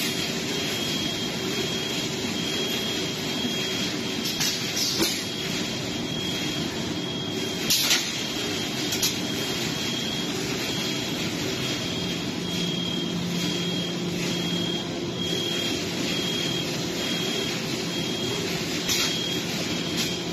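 Steady machinery noise of an automated steel-mesh reinforcement handling line, with overhead gantry grippers moving. A few sharp clanks stand out, the loudest about eight seconds in.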